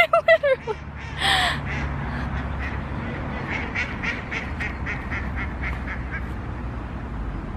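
A duck quacking in a run of about a dozen quacks, about three a second, stopping about six seconds in.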